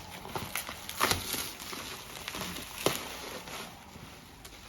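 Packaging being handled: paper and wrapping rustling and crinkling, with sharp crackles about one second in and again about three seconds in.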